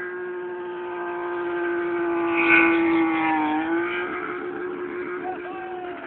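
Jeep Cherokee XJ-based buggy's engine running at steady high revs, its pitch dipping briefly and recovering about three and a half seconds in.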